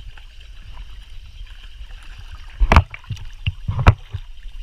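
Water lapping and sloshing against a camera held at the waterline, with a steady low rumble, then a few sharp splashes in the second half.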